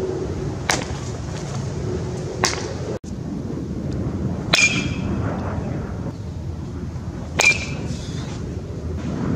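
A baseball bat hitting pitched balls twice, each a sharp crack with a short ringing tone, over steady outdoor background noise. Two lighter sharp snaps come in the first few seconds, before the hits.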